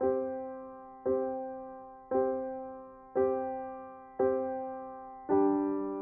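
Background piano music: the same chord struck about once a second, each one ringing and fading before the next, with a fuller, richer chord near the end.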